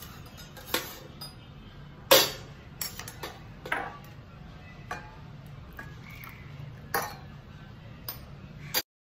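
Kitchen utensils clinking and knocking: about seven separate sharp clinks and taps, the loudest about two seconds in, cut off abruptly near the end.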